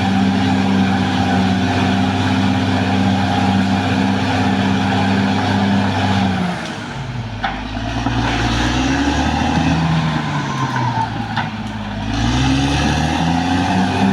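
Caterpillar D6R XL bulldozer's diesel engine running at a steady high note; about six and a half seconds in the engine note drops and wavers for several seconds, then climbs back to the same steady note near the end.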